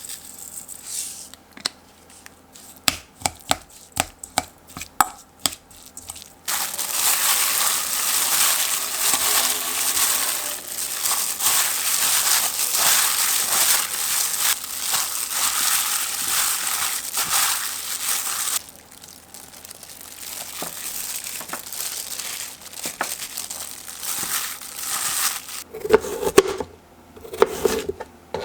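Kitchen food preparation with leafy greens: a series of sharp clicks and knocks, then a long stretch of steady crinkling and crushing as the greens are handled. It ends in quieter rustling and a few clinks of a dish.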